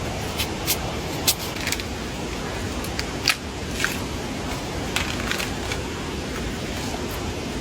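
Steady hiss of rain in a forest, with a dozen or so irregular sharp clicks and snaps, most of them in the first five seconds.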